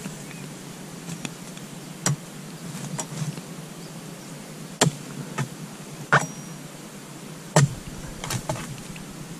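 Oil palm harvesting chisel (dodos) on a long pole being jabbed into the stalks at the base of an oil palm: a series of sharp chopping thwacks. Four are loudest, roughly every second and a half, with lighter knocks between.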